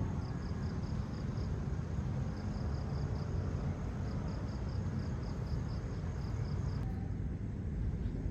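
Steady rain noise. Over it run repeated runs of high, quick chirping at about six chirps a second, which stop about seven seconds in.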